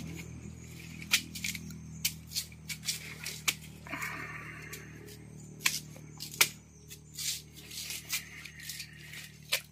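A parang chopping and cutting at the fibrous frond stalks of an asam paya swamp palm, heard as a dozen or so irregular sharp cracks and snaps. The frond sheaths are being cut open to get at the palm heart (umbut).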